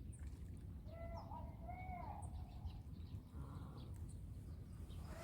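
Geese honking at a distance, two short calls rising and falling in pitch about a second in, with small birds chirping faintly and a steady low rumble underneath.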